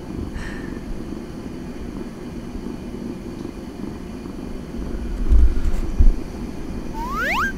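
A kitten gives one short rising meow near the end, over a steady low rumble, with a couple of dull thumps in the middle.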